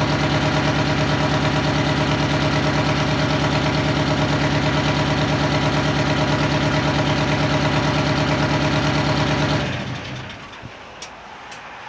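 Detroit Diesel 8V71 naturally aspirated two-stroke V8 diesel idling steadily, then shut off nearly ten seconds in and running down to a stop.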